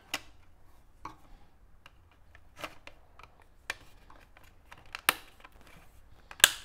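Hard plastic clicks and knocks, roughly one a second, as pieces of a BMW E39 rear-door sunshade housing are handled and pressed back into place. A sharp snap near the end is the loudest.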